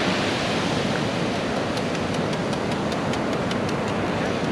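Steady rush of breaking surf, with a quick run of small, sharp rattling clicks over the middle as a metal-detecting sand scoop is shaken and sand and bits of debris sift through its holes.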